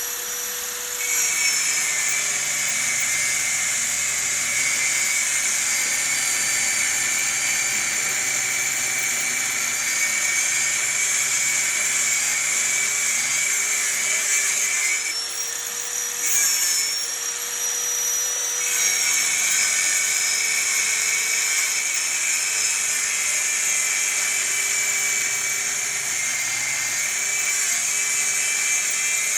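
A high-speed power tool running steadily with a whine, its pitch dipping and shifting briefly about halfway through as its speed or load changes.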